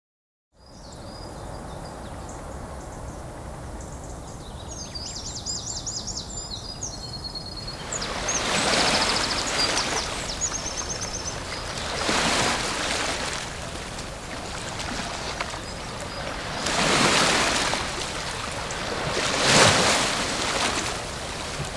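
Sea surf washing over a rocky shore: a steady rush of water that surges louder in four swells, a few seconds apart. A few high chirps come in near the middle.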